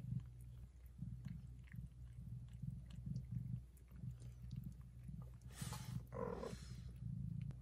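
Mother cat purring, a low purr that swells and fades with each breath as she licks her newborn kittens. A short burst of noise breaks in about five and a half seconds in.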